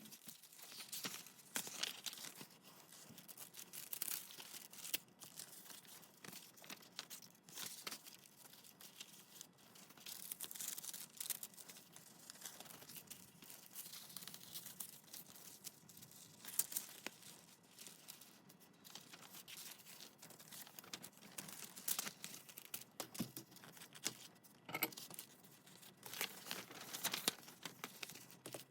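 Paper being handled for a junk journal: many short, irregular rustles and crinkles, some sharper than others, like sheets being torn and folded.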